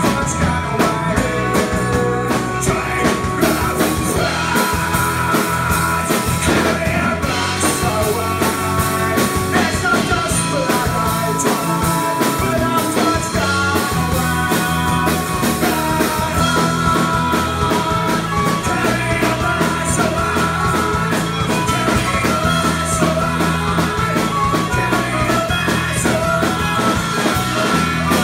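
Live rock band playing with electric and acoustic guitars, violin and drums, with a steady beat.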